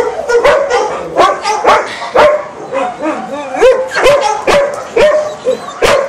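Dogs barking and yipping excitedly: a rapid run of short barks, each sweeping up and down in pitch, about two a second.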